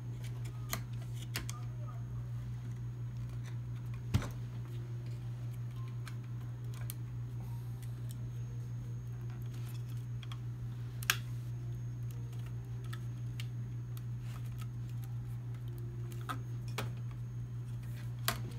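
Scattered small clicks and light knocks as a circuit board is handled and pressed onto its connector inside a dental scanner's metal chassis, the two loudest about four seconds and about eleven seconds in, over a steady low hum.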